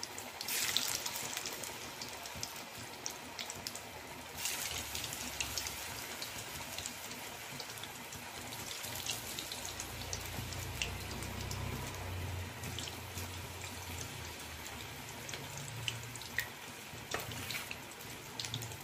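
Minced-mutton balls deep-frying in hot groundnut oil in a kadai: a steady bubbling sizzle with scattered crackles and pops.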